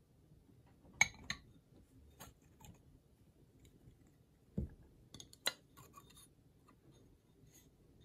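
A ceramic saucer clinking against a glass pudding cup as it is set on the rim and the cup is turned over onto it. There are two sharp clinks about a second in, a dull knock just past halfway, then a few more sharp clinks and faint taps.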